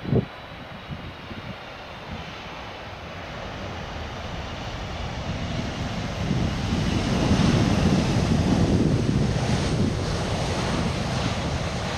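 Boeing 767-300F freighter's jet engines on landing rollout on a wet runway: a low thump right at the start, then a rough roar that swells to its loudest about seven to ten seconds in as the aircraft rolls past, easing a little near the end. Wind buffets the microphone.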